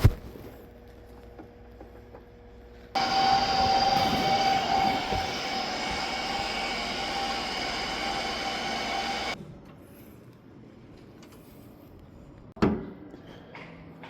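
A motor-driven machine runs for about six seconds with a steady whine, starting and stopping abruptly. A sharp knock follows near the end.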